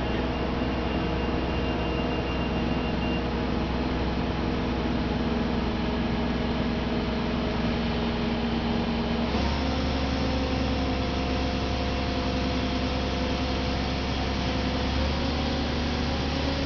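Link-Belt HTC-8650 hydraulic truck crane's diesel engine running steadily. Its speed steps up about nine seconds in and shifts slightly again near the end.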